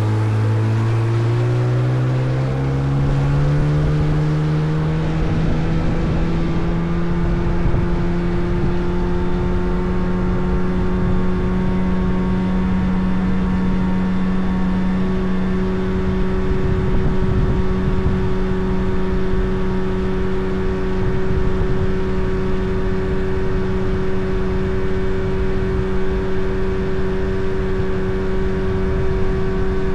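Motorboat engine picking up speed over the first few seconds, its pitch rising, then running at a steady cruising pitch over a constant rushing noise.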